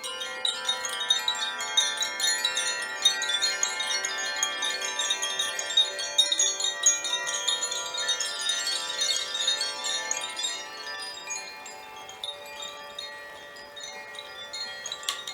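Chimes tinkling continuously over many sustained ringing tones, thinning out over the last few seconds, with one sharp knock just before the end.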